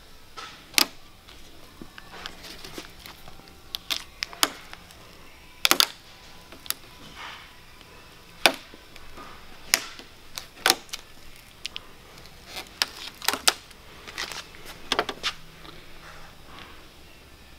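Irregular sharp clicks and taps, a couple of dozen scattered unevenly, from hands handling a decal carrier card and pressing plastic letters onto a car's hood.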